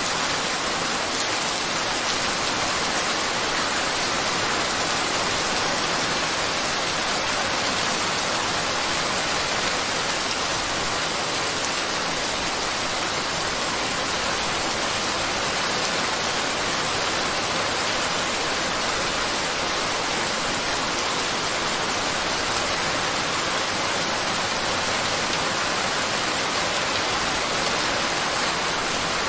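Steady rain sound, an even hiss that does not change.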